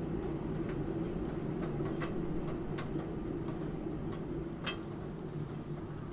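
Computer keyboard keystrokes, sparse and irregular at about two a second, with one louder key press about four and a half seconds in, over a steady background of rain.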